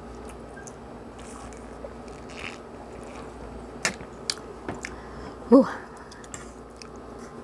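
Quiet close-up mouth sounds of someone drinking from a straw carton and chewing. There are a few light clicks of cutlery about four seconds in, and a short, rising vocal sound about five and a half seconds in, the loudest thing here.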